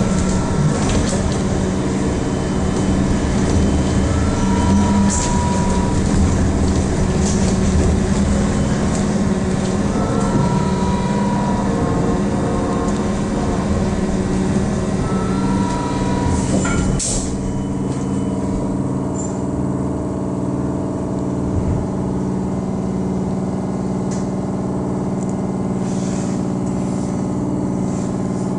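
Trolleybus interior: steady electrical hum and running noise of the trolleybus, with a short two-note electronic beep roughly every five seconds. About two-thirds of the way through a sharp click sounds and the hissing upper part of the noise drops away, leaving the lower hum.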